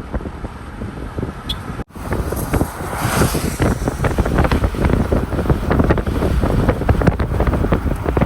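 Wind buffeting the microphone in gusts, rumbling and crackling, with a short break about two seconds in, after which it is louder.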